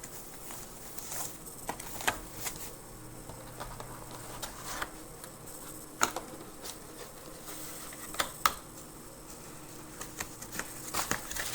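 Scattered light clicks, taps and rustles of packaging being handled while a box's contents are unpacked, over a steady low hum.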